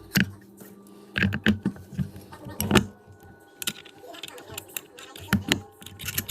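Metal parts and hand tools clinking and knocking during reassembly of a CVT primary clutch: irregular clusters of sharp clicks and knocks, the loudest a little under three seconds in.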